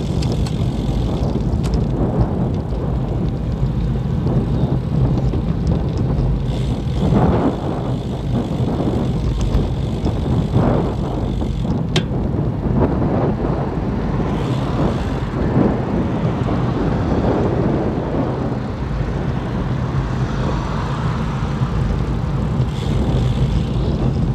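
Steady low rumble of wind and road noise on a camera riding on a moving road bicycle.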